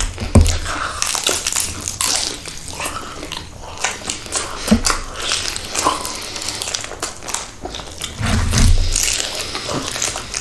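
A person eating: biting and chewing, with irregular crunches and crackles.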